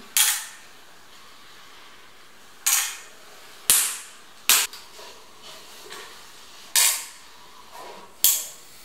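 Sharp clacks from a hand-held adhesive applicator gun being worked while laying beads of adhesive: six snaps, irregularly spaced a second or two apart.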